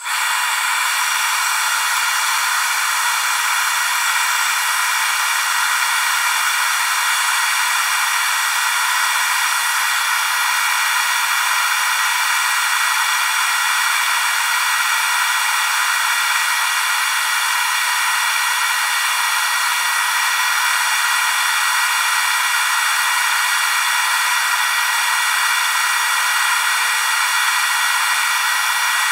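Dust-extraction vacuum and the rose engine lathe's powered cutter running during a cut, a loud, steady hiss with several fixed whining tones that comes in abruptly at the start.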